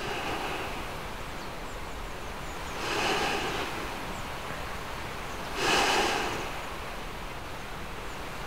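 Outdoor ambience: a steady rushing noise that swells louder twice, about three seconds in and again near six seconds.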